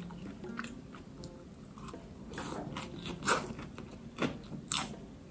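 A person chewing crisp fresh salad greens such as lettuce: irregular crunches, the loudest ones coming about three and four seconds in.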